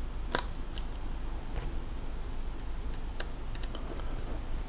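A few irregular small clicks and ticks of a small screwdriver and a tiny screw being set and turned into a laptop's chassis, the sharpest click about a third of a second in.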